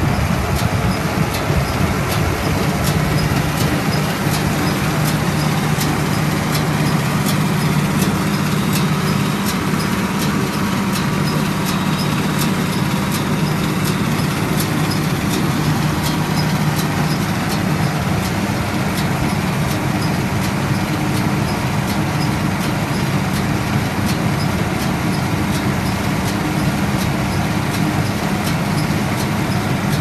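Tractor engine running steadily while towing a 1982 Vermeer 605 Super F round baler, with the PTO-driven baler running behind it. A regular light clicking from the machinery repeats throughout.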